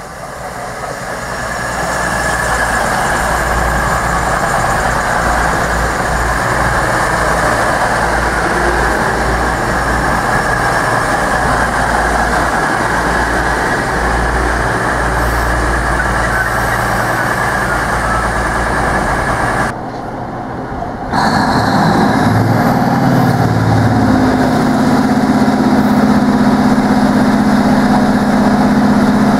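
A Class 222 Meridian diesel multiple unit running through at speed, a loud rushing of wheels and air over a heavy rumble. After a break about twenty seconds in, a Class 43 HST power car's diesel engine is heard close up: its note climbs for a couple of seconds, then holds steady and loud.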